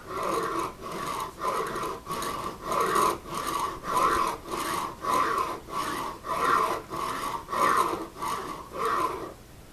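A hand file or rasp scraping back and forth on a hard deer-antler mandolin nut, about two strokes a second, each stroke with a ringing scrape. The strokes stop shortly before the end. The antler is so hard that the file is only just cutting a shallow trough.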